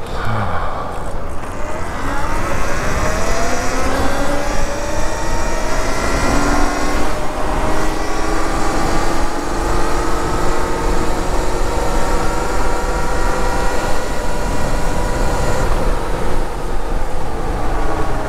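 Talaria Sting electric dirt bike's hub-drive motor and controller whining, rising in pitch as the bike accelerates hard over the first several seconds and then holding near steady at cruising speed, over a constant rush of wind.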